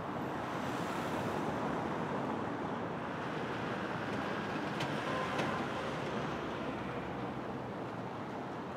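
Steady street traffic noise: cars passing on a city street, with a faint brief tone and ticks about five seconds in.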